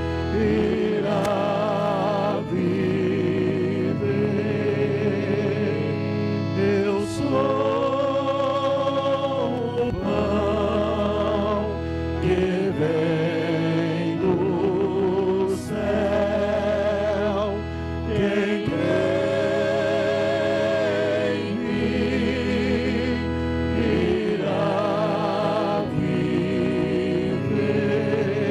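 A choir sings a Catholic communion hymn with vibrato over sustained low accompaniment notes. The phrases change every few seconds.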